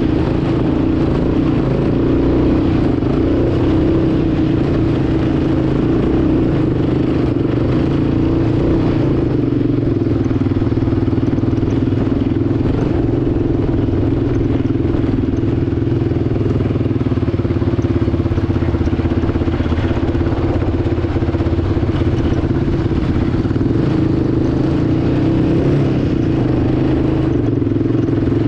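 Yamaha ATV engine running steadily under way, heard close up from a camera mounted on the machine.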